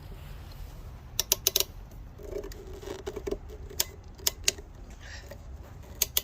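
Sharp clicks of a water-tank plumbing fitting being tightened: a quick run of about four about a second in, then single clicks around the middle and near the end, over a low steady hum.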